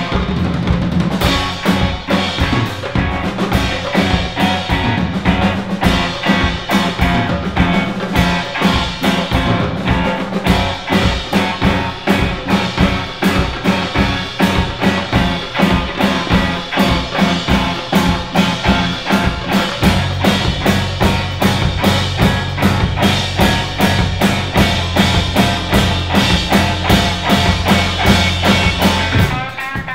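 Rock band playing live and instrumental: electric guitar, bass guitar and a Gretsch drum kit keeping a steady beat. About two-thirds of the way through, the bass moves down to a lower, fuller part.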